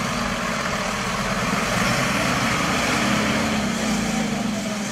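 Diesel engine of a Mercedes-Benz fire engine running steadily with a low hum as the truck drives slowly away.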